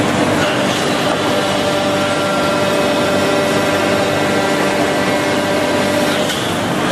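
Automatic plywood edge-trimming saw machine running: a steady, loud mechanical drone with several steady whining tones from its spinning motors and blades. One of the tones drops out about six seconds in.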